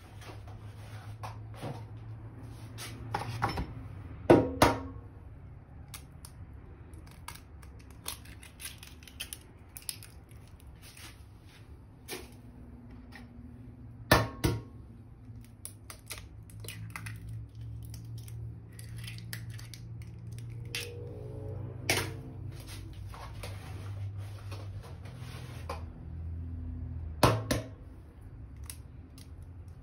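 Eggs being cracked one at a time on the rim of a metal mixing bowl: sharp taps and cracks every several seconds, in about four clusters, over a steady low hum.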